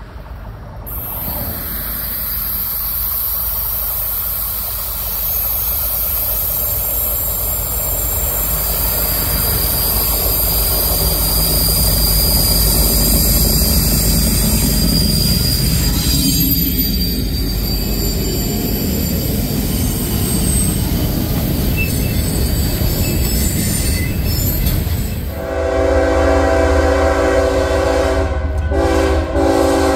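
Diesel freight locomotives approach and pass with a growing engine rumble, followed by empty coal hoppers rolling by with steady wheel-on-rail noise. About 25 seconds in, the sound cuts to a second train's locomotive horn, a loud multi-tone chord held long and broken briefly near the end.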